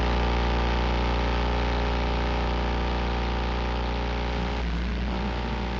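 Brushless motors of a 3-inch FPV quadcopter idling while it sits on the ground: a steady hum with many even overtones, which shifts a little about four and a half seconds in.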